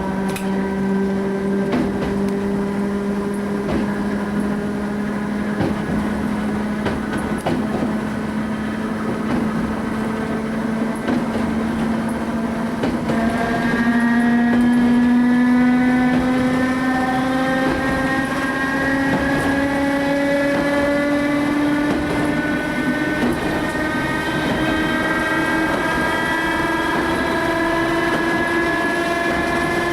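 English Electric traction motors of a Southern Region 2EPB electric unit whining as the train gathers speed, the pitch climbing steadily and getting louder about 13 seconds in, with occasional clicks. The uploader calls the motor very old and worn.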